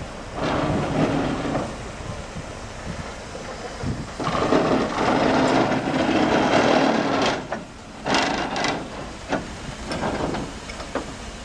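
Small narrow-gauge steam tank locomotive No. 4 moving slowly past, with irregular noisy bursts and clattering. The longest burst lasts about three seconds in the middle.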